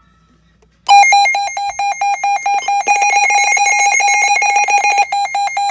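Midland WR-400 weather alert radio sounding its alert siren in test mode: a loud electronic tone beeping rapidly several times a second, starting about a second in. Between about 3 and 5 seconds a second pulsed alert tone at a different pitch sounds over it.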